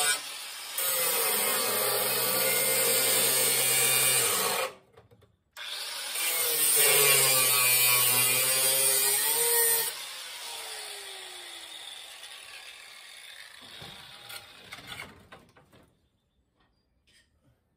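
Handheld cutoff-wheel grinder cutting through the rusted sheet steel of a car's seat base and floor pan. It makes two long cuts with a short stop between, its whine sagging in pitch as the wheel bites in. Then it is let off about ten seconds in and winds down with a falling whine.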